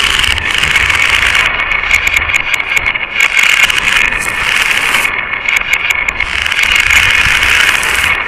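Many glass marbles rolling and clattering along a marble-run track, a steady, dense rattle of rapid small clicks.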